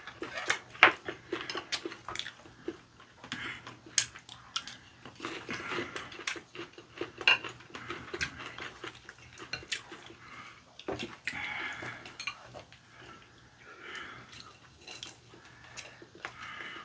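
Metal chopsticks clicking and clinking irregularly against ceramic bowls and plates, with soft chewing of sauced fried chicken between the clicks.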